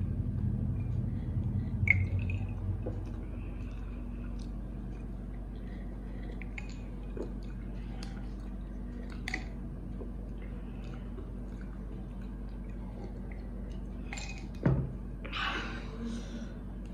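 Quiet eating and drinking: chewing on a soft snack cake, sips from drinking glasses and small clicks, over a faint steady low hum. Near the end comes one sharp knock, then a short breathy puff.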